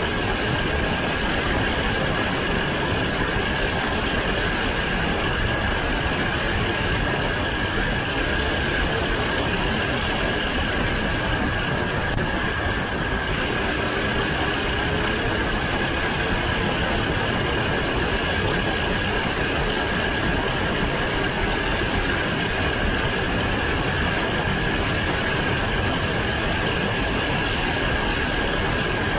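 Racing kart's engine running steadily at speed while lapping a dirt oval, heard onboard as a constant drone with a steady high whine over it.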